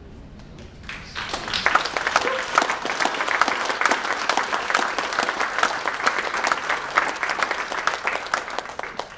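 Audience applauding: many hands clapping together, starting about a second in and dying away near the end.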